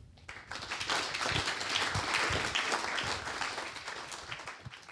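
Audience applauding: many people clapping together, swelling over the first second or two and fading away near the end.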